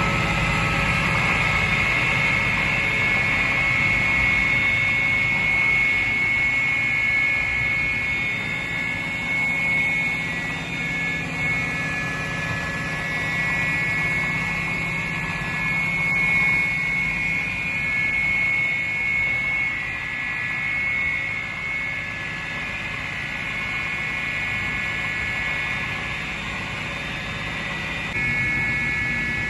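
Sliding table saw with a 3 HP motor running: a steady high whine over a low hum, with small rises and falls in level.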